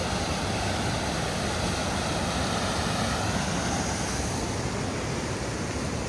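Mountain stream rushing and cascading over rocks, a steady loud rush of white water.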